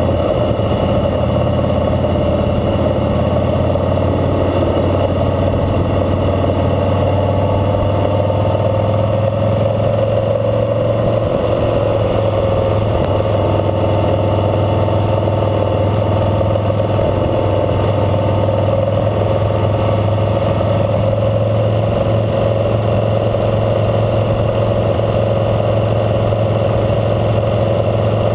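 2012 Harley-Davidson Fat Boy Lo's V-twin engine running steadily while the motorcycle rides along, at an even level with no changes in revs.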